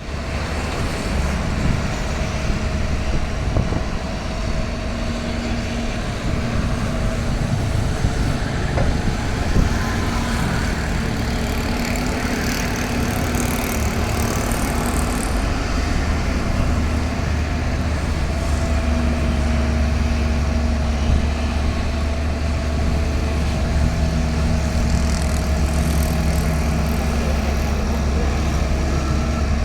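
Heavy earthmoving machinery's diesel engine running steadily with a deep, continuous rumble. A few short knocks come in the first ten seconds.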